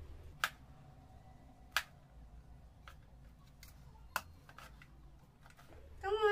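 Kitchen knife cutting a vegetable on a wooden cutting board: a few sharp, separate cuts a second or more apart, with softer taps between. A young child's voice starts near the end.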